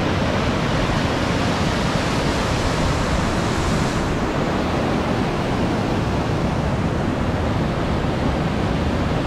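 Steady rushing water, as of a mountain stream or waterfall, making a loud, even noise.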